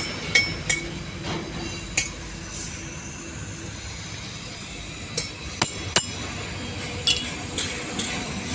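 Hammer striking the end of a metal truck diesel tank: about nine sharp, unevenly spaced metallic knocks, some with a short ring.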